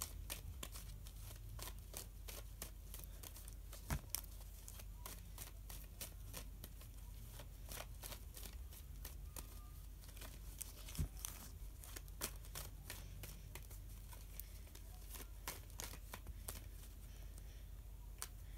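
Tarot cards being shuffled by hand: a run of soft, irregular card clicks and slaps, with two louder knocks about four and eleven seconds in.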